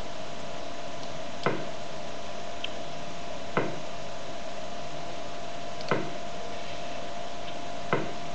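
Four sharp clicks about two seconds apart at a computer during a chess game, over a steady electrical whine and hiss.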